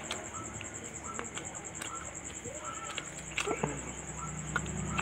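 Fingers mixing rice and fish curry on a steel plate, with small wet clicks and a few sharper clicks about three and a half and four and a half seconds in. Insects chirr steadily at a high pitch in the background.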